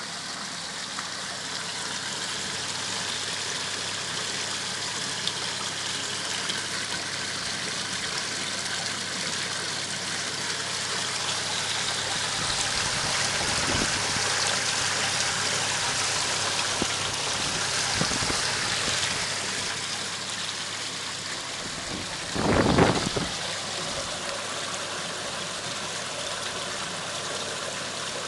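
Water running and splashing steadily through a stainless-steel bakki shower pond filter. A brief louder rumble comes about 22 seconds in.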